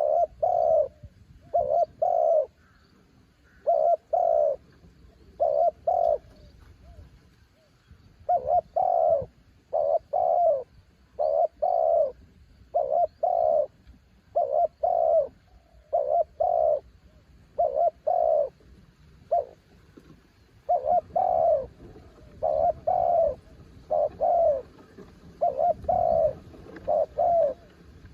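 Spotted dove cooing over and over, in short phrases of two or three low coos that repeat every second or two.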